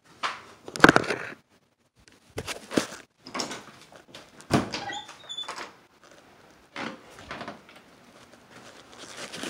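Handling noise from a phone being picked up and carried: a series of separate knocks and clunks, the loudest about a second in, with a brief squeak about five seconds in.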